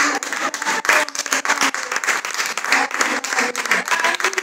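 Small audience applauding: many quick, overlapping hand claps, with a few voices faintly among them.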